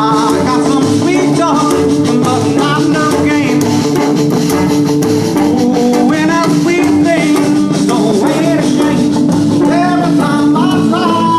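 A band playing rock music, with guitar and drums and a wavering, sliding melody line over held notes, which may be a singing voice.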